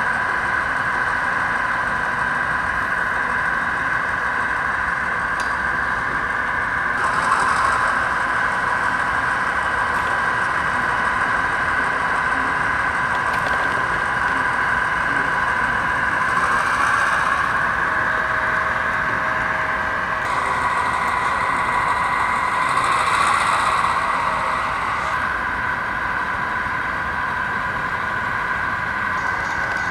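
Sound-equipped HO scale model diesel locomotive's engine sound running steadily from its small onboard speaker, with three short hisses along the way.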